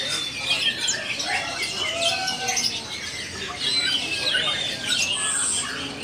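Many caged songbirds calling at once: a dense, overlapping chorus of short chirps, whistles and squawks.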